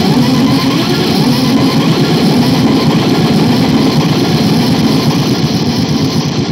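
Harsh noise music: a loud, steady wall of distorted synth noise with a rough, engine-like low rumble.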